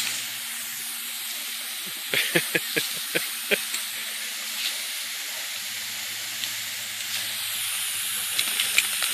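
Garden hose spraying a fine mist, a steady hiss, with a few short sharp sounds about two to three and a half seconds in.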